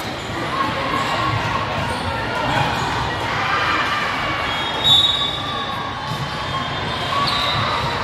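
Volleyball game sounds in a gym: a ball bouncing on the court, with short high squeaks over a steady background of crowd voices. A brief high tone about five seconds in is the loudest moment.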